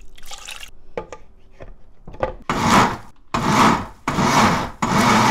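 Countertop electric blender grinding cooked barley rice, salted shrimp and anchovy fish sauce into a paste. After a couple of seconds of light clicks and knocks as the jar is fitted, the motor starts about halfway through and runs in short pulses of about a second each, with brief gaps between them.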